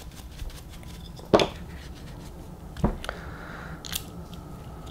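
Bench handling sounds as an RC buggy shock absorber and cleaning tools are picked up and put down: two short knocks a second and a half apart, a brief rustle, then a sharp tick.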